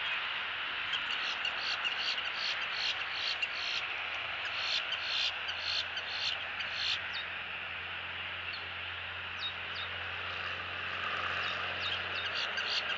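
Outdoor ambience: a steady hiss with runs of rapid clicking, from about a second in to the middle and again near the end.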